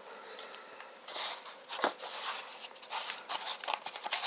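Faint rustling and a few light taps from packaging being handled: a plastic bag and a polystyrene foam block around a car head unit.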